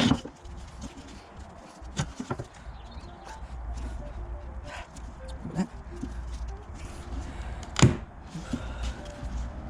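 Scattered knocks and clicks as a connector plate insert is pushed and worked into a tight hole in a plywood speaker-box panel, with one sharp knock near the end. A steady low hum runs underneath.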